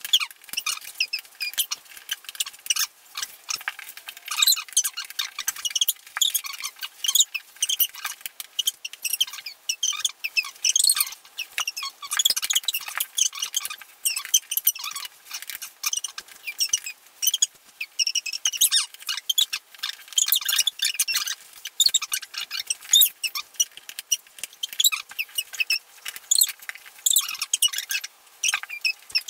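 A dense, irregular run of rapid high-pitched squeaks and clicks with nothing low in it, the room's own sound played back at timelapse speed.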